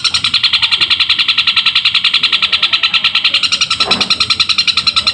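Long-tailed shrike (cendet) singing a loud, unbroken chatter of short notes, about ten a second, in the imitated house-sparrow call. A brief dull knock about four seconds in.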